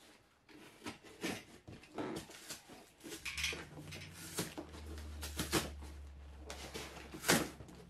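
Long cardboard shipping box being handled and opened by hand: irregular scrapes, taps and rustles of cardboard and tape. A low steady hum joins about three seconds in.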